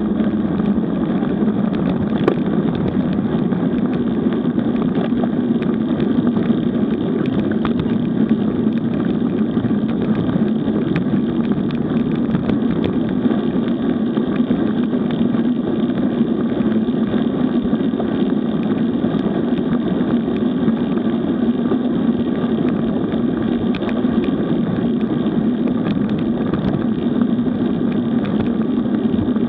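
Steady rush of wind and tyre noise from a road bike rolling along asphalt, muffled on a bike-mounted action camera's microphone.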